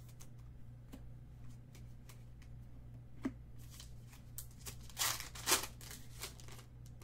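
Foil Panini football card pack crinkling and being torn open by hand, loudest about five seconds in, after scattered light clicks of cards being handled.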